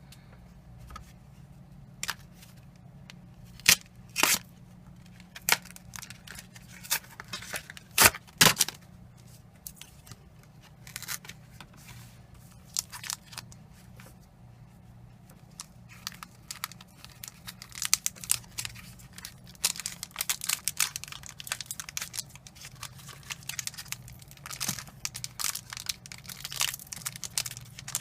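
Foil Pokémon trading card booster pack being torn open and its wrapper crinkled. Scattered sharp rips and crackles come first, then denser crinkling and rustling through the second half.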